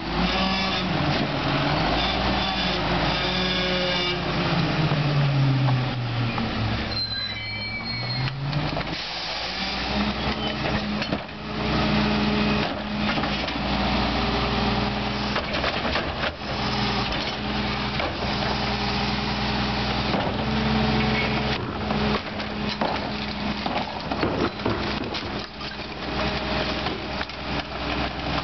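Rear-loading McNeilus garbage truck's diesel engine running, its pitch dropping over the first few seconds and rising again around eight seconds in, with a brief high squeal near seven seconds. Knocks and clatter follow as a wheeled trash cart is tipped and emptied into the hopper.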